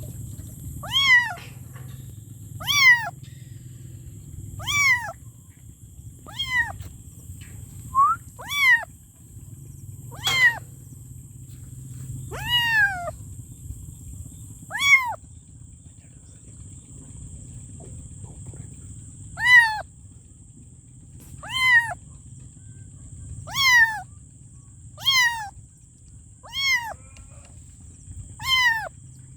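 Kitten meowing over and over in short, high calls that each fall in pitch, roughly one every two seconds, with a pause of a few seconds past the middle.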